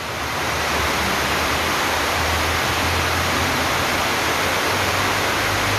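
A steady, loud hiss with an uneven low hum underneath.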